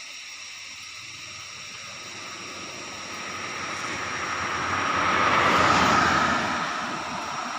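A car passing close by on a paved road: its tyre and engine noise swells over several seconds, peaks about six seconds in, then fades.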